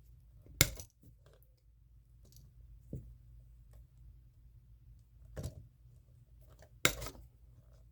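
Wire cutters snipping through electrical wire: two sharp snaps, about a second in and near the end, with a couple of fainter clicks between.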